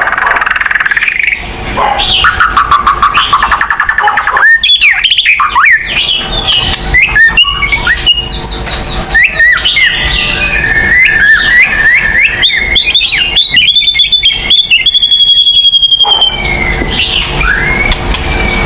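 White-rumped shama (murai batu) in full song: a long, fast, varied run of clear whistles and sweeping notes. It includes a rapid trill in the second and third seconds and runs of quick repeated high notes from about twelve seconds to sixteen seconds.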